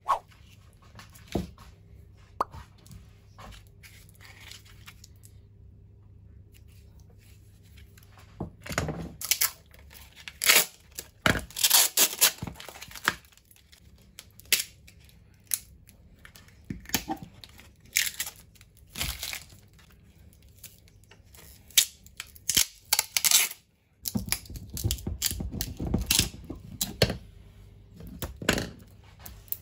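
Plastic wrapping crinkling and tearing as it is peeled off a green epoxy-resin block, in irregular short rustling bursts with a few sharp handling clicks.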